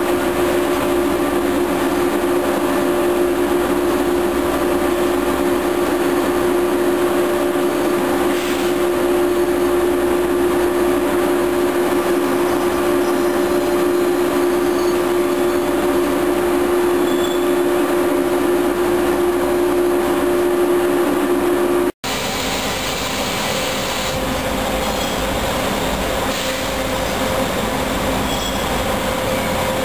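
Passenger coaches rolling slowly over station tracks and points, their wheels squealing with steady high tones over the rumble. After an abrupt cut about two-thirds of the way in, a second locomotive-hauled train approaches, again with steady wheel squeal.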